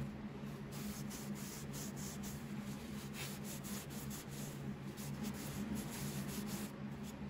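Paper towel rubbing wood stain into a small wooden handle piece: a run of short, irregular wiping strokes, over a steady low hum.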